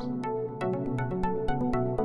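Electronic background music: synthesizer notes stepping in a pattern over a steady percussive beat.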